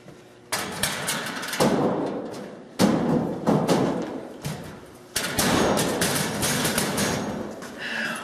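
Metal school lockers being banged and their doors opened and shut: four loud bangs, each trailing off in a second or two of clatter.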